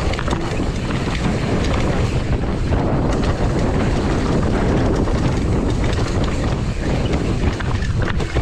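Steady wind rush and rumble on the microphone of a camera riding on a mountain bike at speed down a trail.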